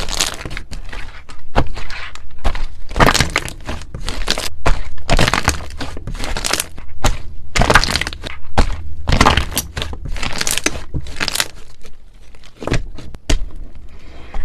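Slime being squeezed and worked, crackling and crunching in quick, irregular bursts.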